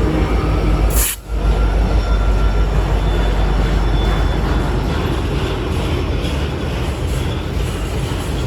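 Steady rumble of a moving Louisville & Indiana freight train, with a brief dropout in the sound about a second in. No horn sounds.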